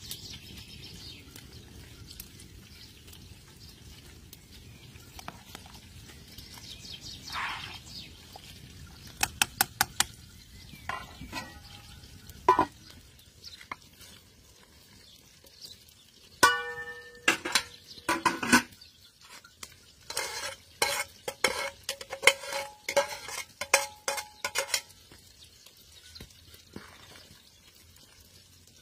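A pot of broth bubbling over a wood fire, then a run of metal clinks, knocks and scrapes with ringing notes from about halfway through: a lid, an aluminium colander and a ladle striking a steel pot as ingredients are tipped in and stirred.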